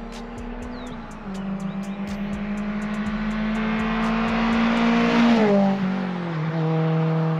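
Honda S2000's four-cylinder engine through an Invidia N1 cat-back exhaust as the car drives past, the note rising slowly as it pulls, loudest about five seconds in. The pitch then falls in steps as the car moves away and eases off.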